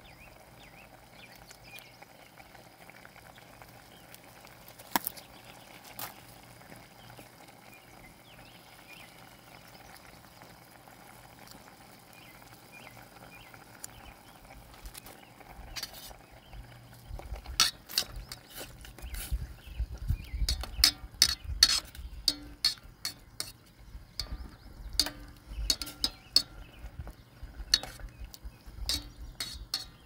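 Udon soup simmering in a stainless steel pot on a portable gas stove, with a steady low hum under it. From a little past halfway, metal tongs stir the noodles, with many sharp clinks and knocks against the pot.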